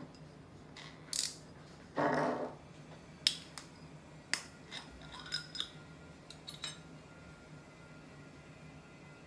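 Metal screw cap twisted off a glass bottle of Chungha rice wine, its seal breaking with a short crackle about two seconds in. Several sharp clicks and light knocks follow as the cap and bottle are handled.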